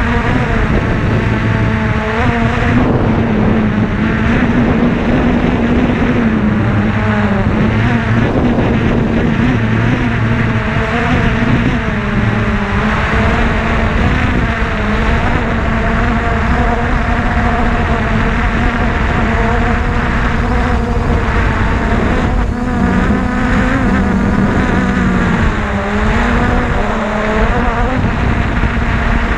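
An engine running steadily over a heavy rumble, its pitch sagging and picking up slightly several times.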